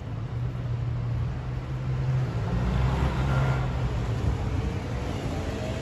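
City street traffic: a steady low engine rumble, with a passing vehicle swelling up in the middle and fading again.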